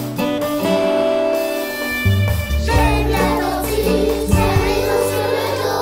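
A children's song with violin and drum-kit accompaniment; about three seconds in, a group of young children starts singing together over the instruments.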